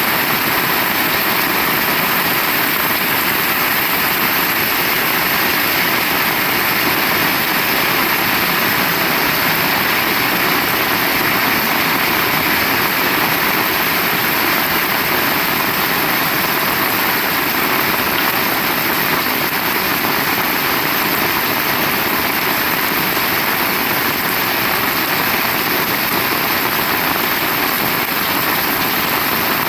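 Heavy rain falling as a loud, even hiss that holds steady throughout, with no thunder claps.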